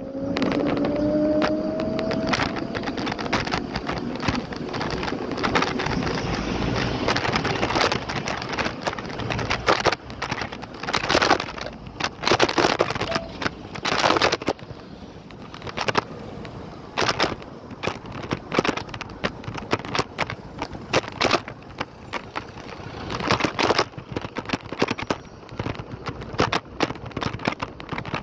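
Lime electric kick scooter riding over city pavement, its wheels and frame rattling and knocking over bumps in a steady stream of sharp knocks. A faint rising whine in the first couple of seconds comes from the motor picking up speed.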